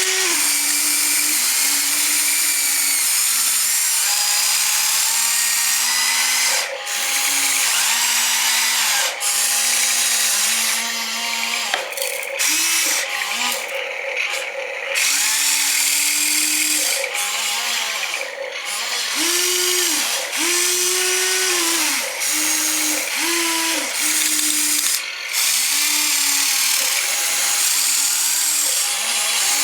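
Small electric motors of a toy excavator and dump truck whining in short runs, starting and stopping every second or two, the pitch stepping up and down with each movement.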